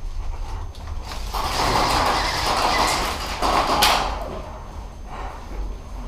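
Rustling and scuffing noise that swells for a couple of seconds, with one sharp click a little past the middle.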